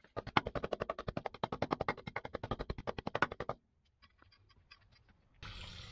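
A steel hand tamper tapping rapidly on loose cold-patch asphalt, compacting it with a quick run of light impacts, about eight a second, that stops about three and a half seconds in. A steady hiss starts near the end.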